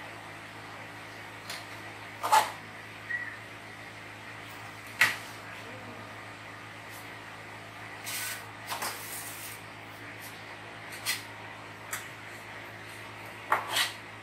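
Metal ladle knocking and scraping against a large metal pot and plastic food containers as thick vegetable soup is dished out: scattered clinks a second or more apart, with a longer scrape about eight seconds in.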